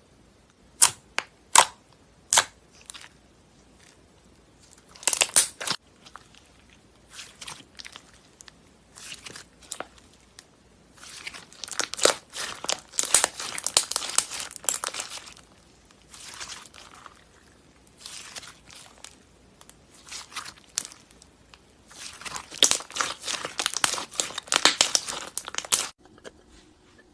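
Slime being played with: three sharp pops near the start, then repeated bursts of dense crackling and popping, the longest two in the middle and near the end, stopping abruptly.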